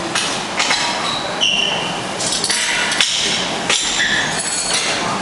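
Metal clinks and knocks of gym weights, several sharp strikes with short ringing pings, over a steady rushing background noise.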